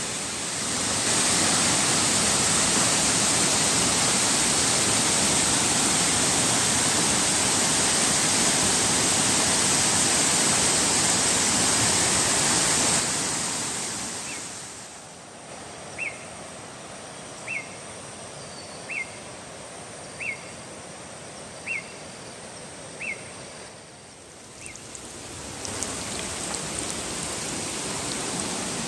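Steady rush of a waterfall, loud for about the first half, then fading down. In the quieter stretch a bird gives a short high call about eight times, evenly spaced about a second and a half apart, before the water noise rises again near the end.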